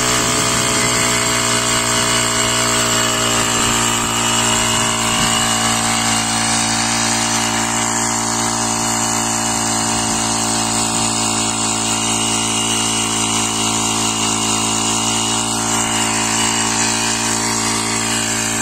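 Neptune PW-768 power sprayer's small four-stroke single-cylinder engine (31.5 cc) running steadily at constant speed, driving its pump while the hose gun sprays.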